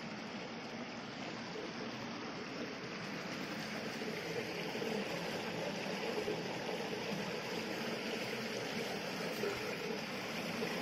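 Shallow water running over rocks, a steady trickling rush that grows a little louder a few seconds in.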